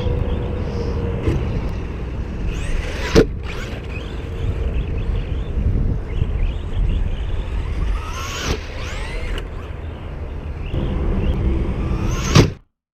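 Arrma Big Rock 3S BLX RC monster truck's brushless motor whining up in quick rising sweeps three times as the truck accelerates, with a sharp knock about three seconds in. The sound cuts off suddenly near the end.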